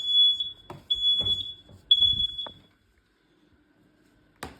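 Smoke alarm in full alarm after a spray of canned test smoke, sounding the temporal-three pattern: three loud, high-pitched beeps of about half a second each, then a pause. A sharp click comes near the end.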